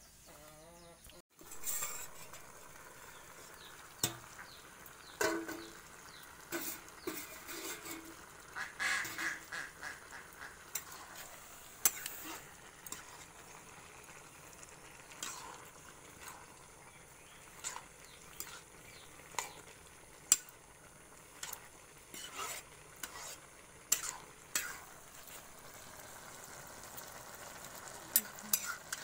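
Metal ladle stirring chopped greens in a metal wok over a wood-fired clay stove, with irregular sharp clinks and scrapes against the pan over a steady hiss from the cooking.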